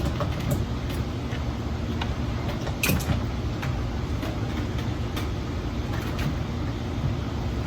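A few clicks and knocks from a charger plug being worked into a ride-on toy car's battery connector, one sharper click about three seconds in, over a steady low rumble.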